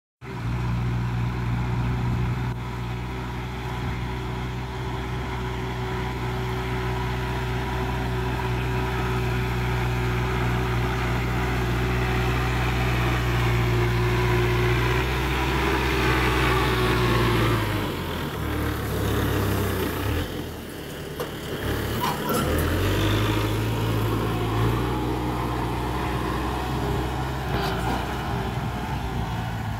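Tractor engine running steadily with a low, even note. About two-thirds of the way through, the note breaks up and dips for a few seconds with a few sharp knocks, then settles back into a steady run.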